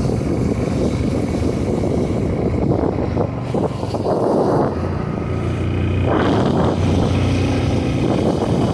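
Motorcycle engine running steadily at riding speed under heavy wind rush on the microphone, heard from the moving bike. The wind noise swells and dips, and the engine's low hum is strongest a little past the middle.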